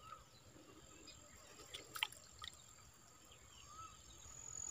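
Quiet: a few faint drips and small sharp clicks of water falling from a freshly lifted dip net and fish, over a faint steady high-pitched whine.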